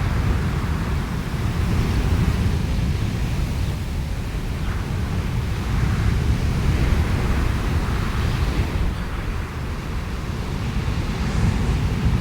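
Thunderstorm: a continuous deep rumble of thunder under a hiss of wind and rain that swells and eases every second or two, with no sharp crack.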